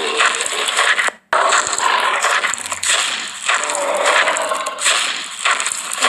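Walking sound effect of crunching, scraping footsteps that runs on continuously, cutting out abruptly for a moment about a second in.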